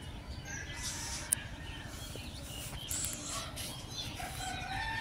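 Wind rumbling steadily on the phone microphone, with faint bird calls in the distance and a single click about a second in.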